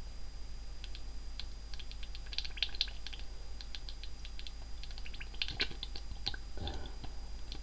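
Homemade flash-steam pop-pop engine, its copper pipes spitting a mixture of air and water. It makes a fast, irregular run of sharp clicks and crackles that comes in clusters, the sign of the pipe ends drawing in air as well as water.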